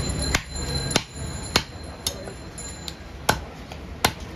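A butcher's knife striking a wooden chopping block as goat meat is cut: about five sharp knocks at uneven intervals, with a few fainter taps between them, over a steady low background rumble.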